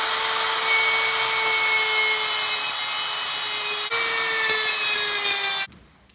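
Small high-speed power tool whining steadily as it grinds at a stripped screw, its pitch sagging slowly under load. It breaks off for an instant a little before four seconds in, picks up again, then stops abruptly near the end.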